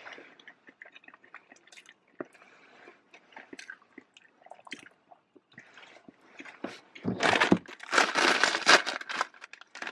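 Quiet close-up chewing and mouth clicks, then about seven seconds in a loud, dense crinkling of plastic snack packaging being handled.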